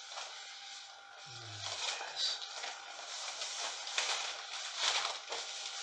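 Clear black plastic mac rustling and crinkling as hands rub and gather the material, with louder crackles about four and five seconds in.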